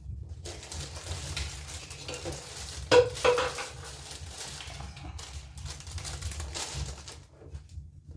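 A metal spoon scraping and stirring in a metal pot, with one loud metallic clank about three seconds in.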